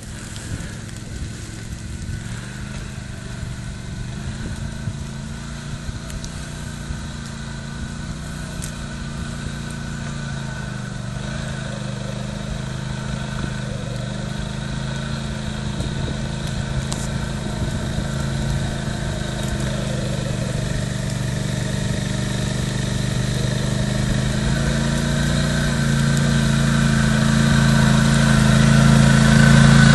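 Quad bike (ATV) engines running under load, the pitch shifting a little with the throttle, growing steadily louder as the lead quad approaches and comes close near the end.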